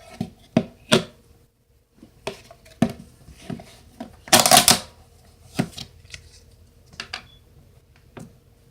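Slime being pressed and squished by hand: a run of sharp sticky pops and clicks, with a longer crackling squish a little after four seconds in.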